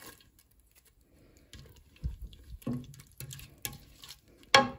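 Red silicone spatula stirring thick cooked mung dal in a metal pot: irregular wet scrapes and soft knocks, starting about a second and a half in, with one sharp knock against the pot near the end.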